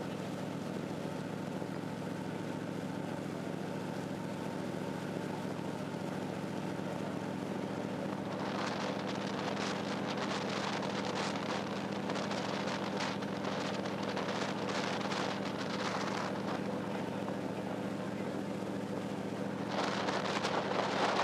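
A ship's engines running with a steady drone, with wind buffeting the microphone in gusts from about eight seconds in, strongest near the end.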